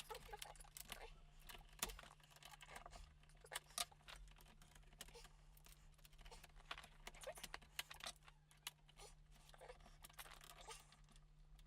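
Irregular light clicks and taps of a small screwdriver and the plastic laptop case being handled while screws are taken out, over a faint steady hum.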